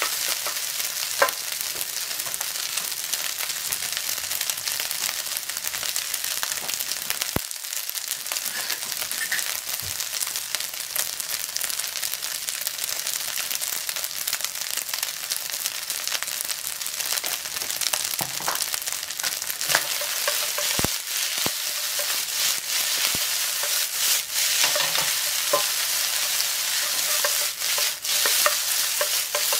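Fried rice with sausage and egg sizzling in oil in a frying pan as it is stirred and turned with a wooden spatula. Occasional sharp knocks of the spatula against the pan break through the steady hiss. The rice is being fried until dry and loose.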